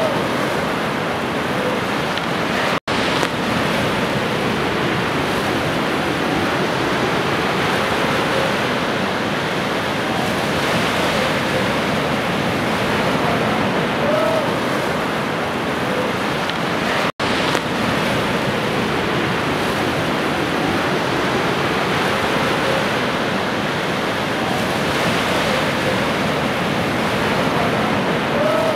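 Continuous rushing water noise, steady with gentle swells in level. It cuts out completely for an instant twice, about three seconds in and again about seventeen seconds in.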